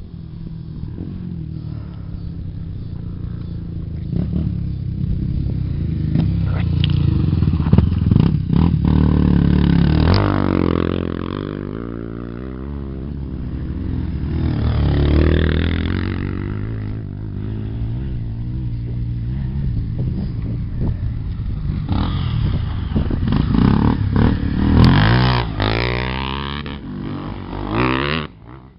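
Off-road motorcycle engines revving hard, pitch rising and falling as the bikes climb past on a dirt trail. It is loudest about a third of the way in and again near the end.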